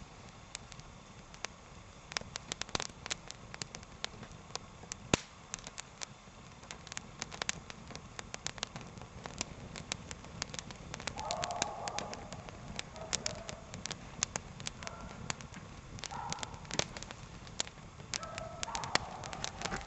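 A young fire of dry spruce twigs and kindling crackling as it catches, with many sharp, irregular snaps and pops.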